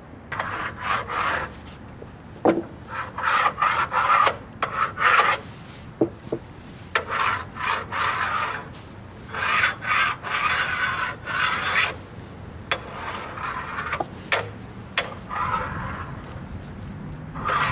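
Freshly sawn maple boards being handled: wood scraping and sliding on wood in irregular strokes, with a few sharp knocks.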